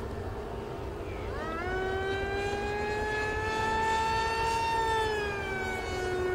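Electric RC model airplane's brushless motor and propeller whining overhead. The pitch climbs sharply about a second and a half in, holds, then eases down a little near the end.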